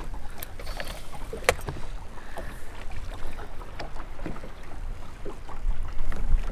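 Small fishing boat on the water: a steady low rumble with scattered small clicks and knocks, one sharper click about a second and a half in, and the rumble growing stronger near the end.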